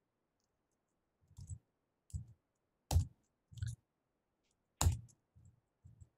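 Computer keyboard keystrokes: about seven separate, irregular key clicks, the loudest about three and five seconds in, as commands are pasted and entered at a router's command line.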